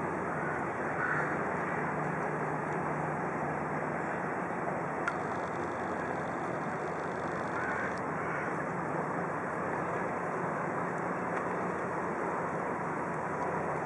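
Steady low mechanical hum from a Czech push boat's diesel engines running under way while pushing loaded barges, blended into an even wash of traffic noise. One small tick about five seconds in.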